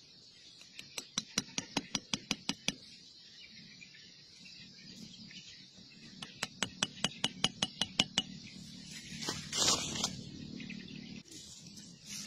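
Machete striking a bamboo stake in quick light knocks, about a dozen in under two seconds, then after a pause another run of about a dozen, driving the stake in for a snake trap. A short, louder scraping rustle follows near the end, over a steady high hiss.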